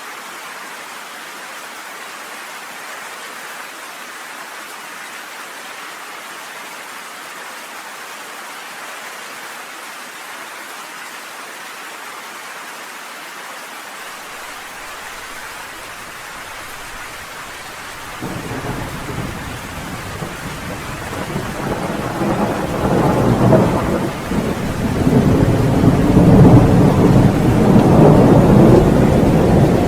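Steady rain hissing, then a long rolling thunder rumble that starts a little past halfway and builds until it is the loudest sound, still rolling at the end.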